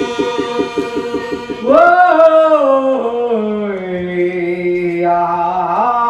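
Voices singing a traditional Taiwanese indigenous chant. A long held note with a fast pulse in it gives way about two seconds in to louder phrases that slide down in pitch, and a new phrase starts near the end.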